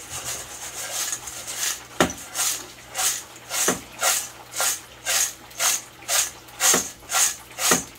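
Fried breadfruit chips rattling as they are shaken with garlic salt and dried parsley to coat them. After a sharp knock about two seconds in, the crisp rustle comes in a steady rhythm of about two shakes a second.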